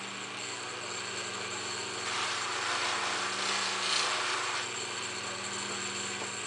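Bench grinder with a buffing wheel running with a steady motor hum. From about two seconds in until near five seconds, a metal trailer window brow is pressed against the spinning wheel for polishing, adding a louder rough rushing sound.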